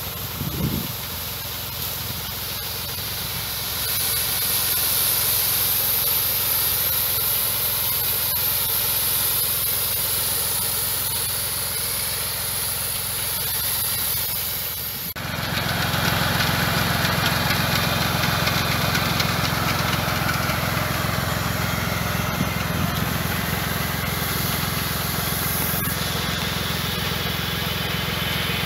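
Tractor engine running a sprayer's D120 piston pump, with a steady high hiss of liquid atomised from the nozzles at about 60 bar. About halfway through the sound changes abruptly and the engine hum becomes louder.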